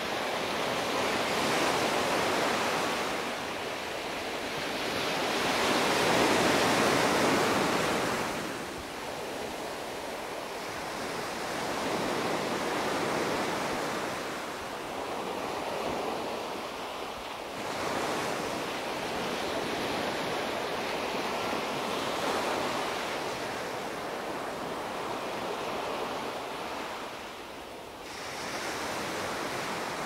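Small sea waves breaking and washing up a sandy beach, the surf swelling and fading every few seconds, loudest in the first eight seconds.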